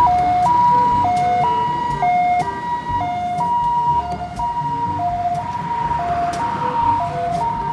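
Ambulance's two-tone siren, alternating steadily between a high and a low note, each held about half a second, over a low road rumble.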